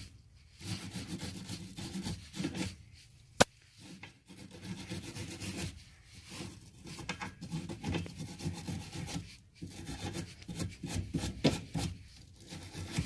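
Wire brush scrubbing old Teflon tape off the threads of a gas line fitting, in short uneven strokes with brief pauses. One sharp click about three and a half seconds in.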